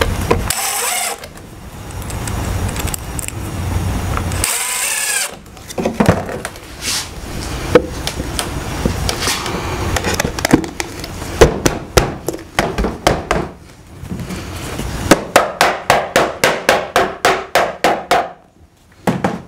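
Cordless drill briefly driving a screw into the pine hive box at the start and again about five seconds in, then a mallet knocking the wooden side boards of a beehive deep box together to seat the finger joints: scattered knocks, then a quick run of about five taps a second near the end.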